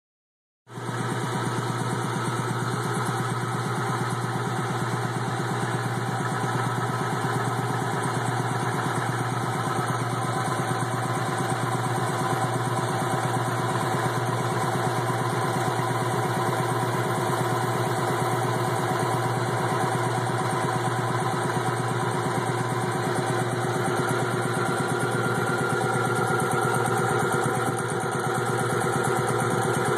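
Wayne air compressor running steadily: motor and pump working with an even, unbroken low hum.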